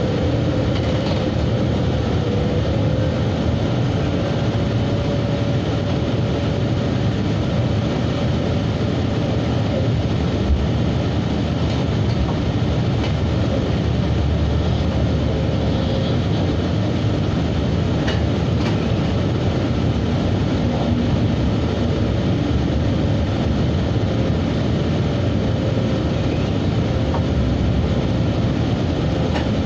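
Train running steadily along the track, heard from the front cab: a continuous rumble of wheels on rails with a faint held tone that drifts slightly in pitch, and a few faint clicks.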